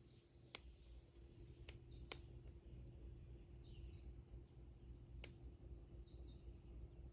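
Faint outdoor ambience: a low rumble with a few soft clicks and some faint bird chirps.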